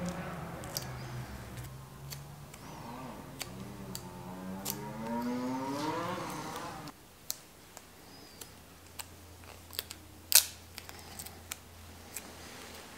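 Adhesive decals being peeled off a Fox suspension fork's lower legs: a drawn-out creaking peel that rises in pitch and stops abruptly about seven seconds in. After it come scattered light clicks and ticks of fingernails and a small pick tool working at the decal edges, the loudest click about ten seconds in.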